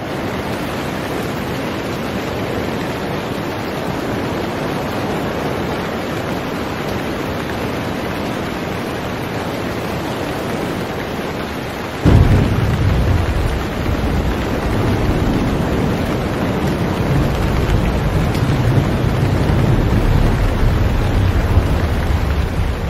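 Steady rain, with a sudden crack of thunder about halfway through, followed by a deep rumble of thunder that keeps rolling.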